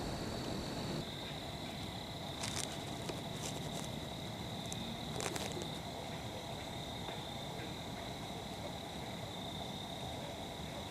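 A steady, high-pitched whine or trill runs throughout, dropping slightly in pitch about a second in. Two short rustles or snaps come about two and a half and five seconds in.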